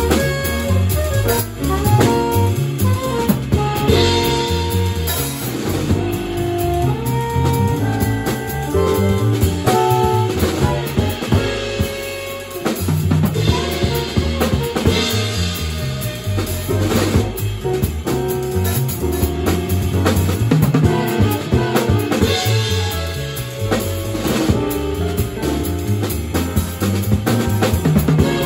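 Live jazz quartet playing the opening of a tune right after the count-in: saxophone carrying the melody over drum kit, keyboard and bass, with a brief dip in the playing about halfway through.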